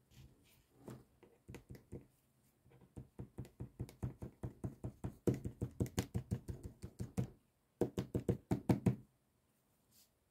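A pen tip tapping rapidly on paper on a hard desk, stippling dots: a few scattered taps, then a fast, even run of about six to seven taps a second, a brief pause, and a second shorter run.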